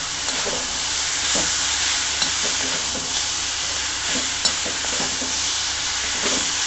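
Onions, tomatoes, cashews and curry leaves sizzling in hot oil in a pan while being stirred, with a steady hiss and scattered taps and scrapes of the spoon against the pan.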